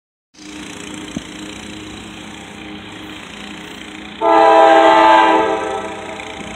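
CSX freight locomotive's air horn sounding one blast of several notes together, lasting a little over a second, starting about four seconds in. It is the warning sounded as the train approaches a grade crossing.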